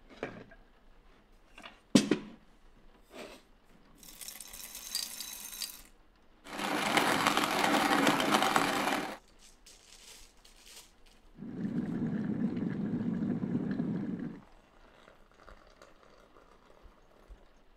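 A few sharp knocks and clicks, then a hand-cranked box coffee mill grinding beans for about three seconds in the middle. Later comes a steady, lower rushing sound about three seconds long.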